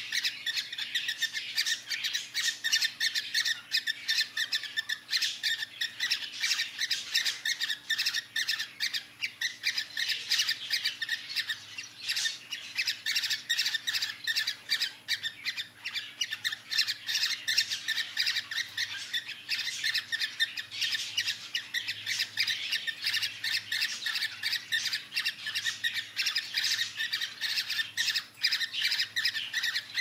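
Cockatiels mating, giving a rapid, unbroken stream of short, high-pitched squawks and chirps.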